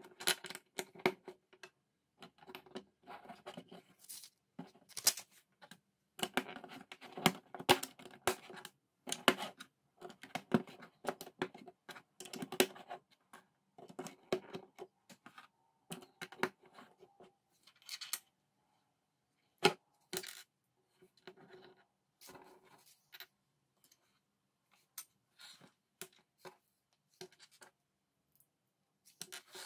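Plastic LEGO bricks handled on a tabletop: irregular clicks as pieces are pressed together and set down, with scratchy rubbing of plastic. The handling is busy through the first half and thins out later, with one sharp click about two-thirds of the way in.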